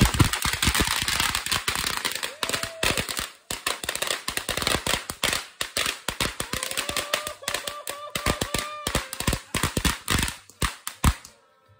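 Ground fountain firework spraying sparks with a hiss and rapid, irregular crackling pops. The crackling thins out and stops just before the end.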